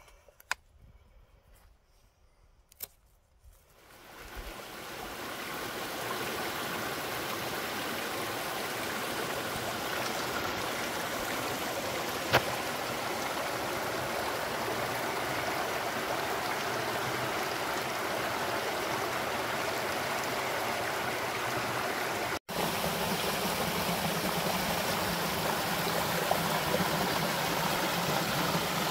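A small rocky stream running and splashing over little cascades, a steady rush that fades in after a few seconds of near silence with faint clicks. It cuts out for an instant near the end.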